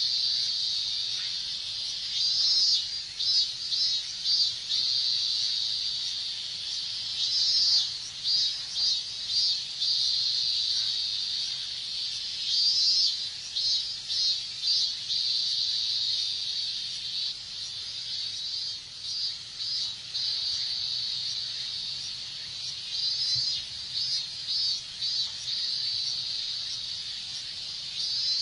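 Chorus of robust cicadas (minminzemi) singing: a continuous high drone with runs of rapid pulsed 'min-min' calls breaking in about every five seconds.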